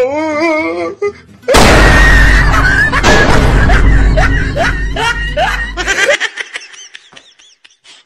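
A wavering comic music cue breaks off about a second and a half in for a sudden loud firecracker blast. Its deep rumble lasts about four seconds, with laughter and yelps over it, and then fades away.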